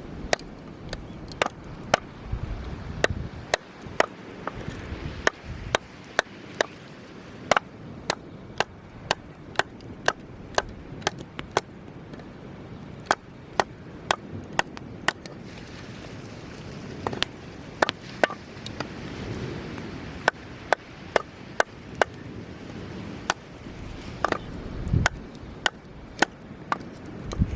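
Wood fire crackling: burning firewood gives off a steady run of sharp, irregular snaps and pops, one to three a second, over a low steady hiss.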